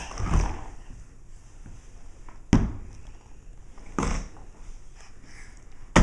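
A few dull thumps on a wooden floor, the loudest about two and a half seconds in, another about a second and a half later: a soft ball that does not bounce landing on the floor.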